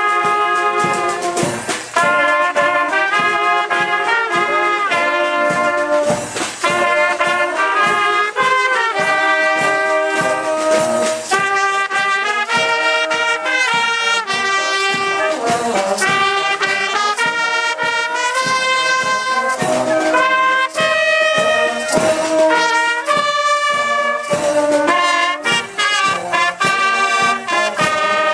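Marching brass band playing a tune: trumpets and other brass horns sounding a melody together, steady and loud throughout.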